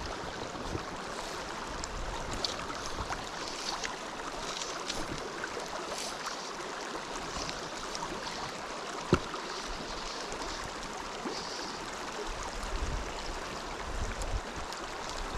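Small creek running steadily over rocks, with one sharp click about nine seconds in.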